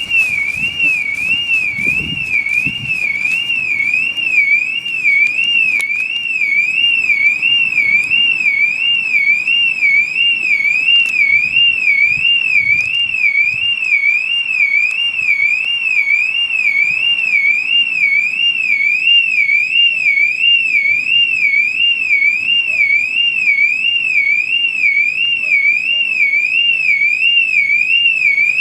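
Car alarm sounding a continuous high warbling tone that swings quickly and evenly up and down without a break.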